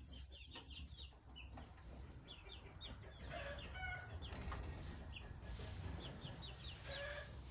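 Young chicks peeping: clusters of short, high, falling chirps, with a few lower calls mixed in.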